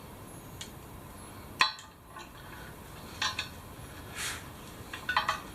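Scattered metallic clinks and knocks of a valve tool and tubeless tyre valve being worked against a steel wheel rim, the loudest knock about a second and a half in and a quick cluster near the end.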